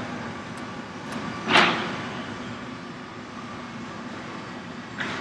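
Steady crowd noise in a basketball arena during live play, with one short, loud burst about one and a half seconds in.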